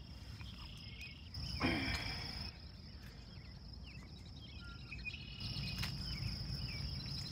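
Steady high-pitched trilling of crickets and other insects over a low rumble, with a brief louder sound about a second and a half in.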